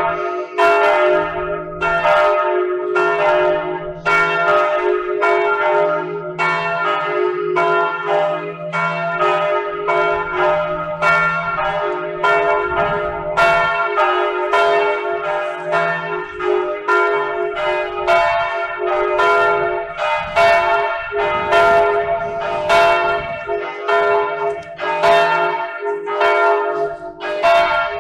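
Church bells ringing a continuous full peal, several bells swinging so that their strikes overlap about one to two times a second, with the hum of the bells ringing on beneath.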